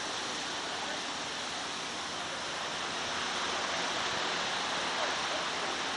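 Steady wash of surf on a beach, an even hiss of waves that swells slightly in the middle.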